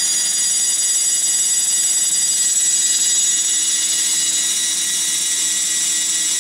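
An HP MAP3367NC 10,000 RPM SCSI hard drive running with its lid off: a steady, high-pitched whine of several tones from the spindle motor and spinning platters. There are no head seek clicks; the owner suspects the drive's controller board, and possibly the motor bearings, are defective.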